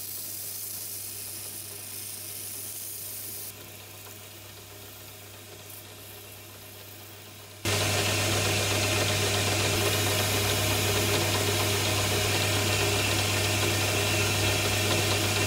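Small bench lathe running with a steady motor hum, spinning a screwdriver's metal shaft; for the first few seconds sandpaper hisses against the spinning part. About halfway through the sound jumps much louder into a dense, steady running noise that holds to the end.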